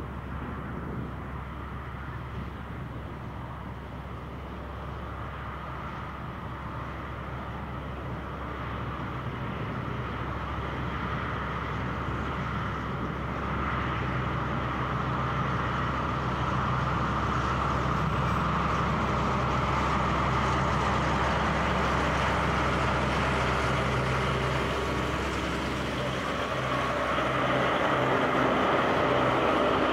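Two CSR class (SDA-1) diesel-electric locomotives heading a container freight train, engines running as the train approaches. The sound grows steadily louder and is loudest near the end as the locomotives draw level.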